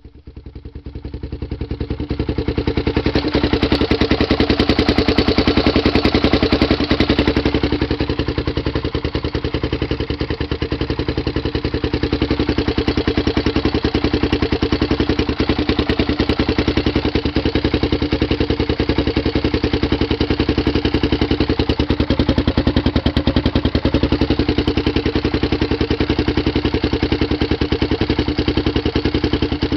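Built-up Honda TRX400EX single-cylinder four-stroke ATV engine (416cc, 11:1 Wiseco piston, stage 3 Hot Cams camshaft) idling steadily with a fast, even beat. It has a ticking that the owner puts down to the Hot Cams camshaft's valvetrain and finds too loud. It grows louder over the first couple of seconds, then holds steady.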